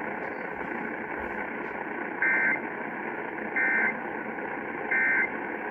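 Emergency Alert System end-of-message signal: three short two-tone digital data bursts about 1.4 s apart over steady radio static. It marks the end of the tornado warning message.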